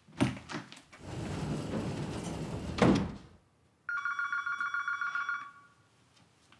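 Desk telephone ringing with a rapid, pulsing electronic trill. It starts about four seconds in and lasts about a second and a half. Before it comes a stretch of noise that ends in a loud thump near three seconds in.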